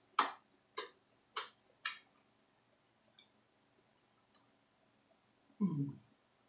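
Wet finger-licking and lip smacks: four sharp clicks about half a second apart in the first two seconds, then a couple of faint ticks. Near the end there is a short low 'mm'-like sound from the throat.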